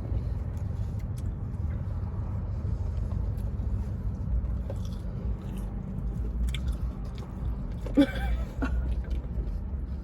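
Close-up chewing and biting of a fried chicken sandwich, with small wet clicks, over a steady low car rumble. A short vocal sound comes about 8 seconds in.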